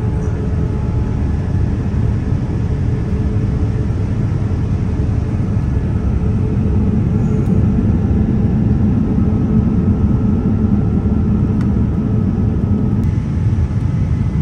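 Airbus A350 passenger cabin in flight: the steady low roar of airflow and engines, with a faint steady hum above it.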